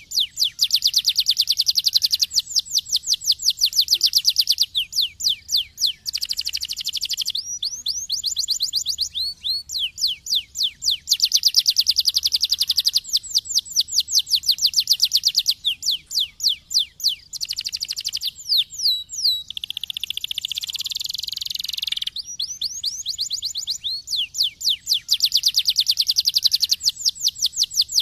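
Domestic canary singing a long, fast song of rapid trills, each a run of quick repeated chirps with short pauses between phrases, and a harsher buzzing phrase about two-thirds of the way through.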